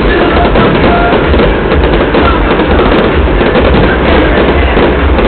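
Fireworks going off in quick succession: a dense, continuous crackle of bursting shells with low booms underneath.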